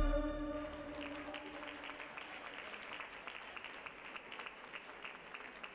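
Audience applauding quietly with scattered claps, after the last sustained chord of the dance music fades out in the first second.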